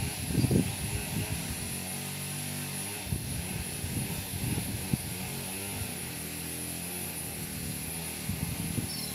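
Steady low droning hum with occasional low rumbles, under a thin, high, steady whine.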